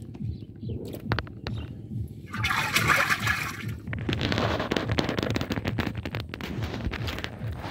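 Muddy water splashing and sloshing as catfish are scooped by hand out of a mud fish trap, with a louder splash about two and a half seconds in, then a run of wet slaps and splashes from the fish squirming.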